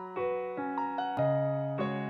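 Piano music: single notes and chords struck one after another, each ringing and fading.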